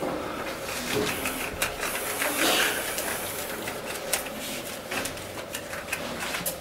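White athletic tape being pulled off rolls and wound around wrists: several noisy tearing pulls with small clicks and rustles, the loudest about two and a half seconds in.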